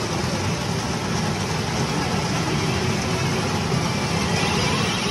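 Steady, loud din of a pachinko parlour, with the machines and their steel balls blending into one constant noise.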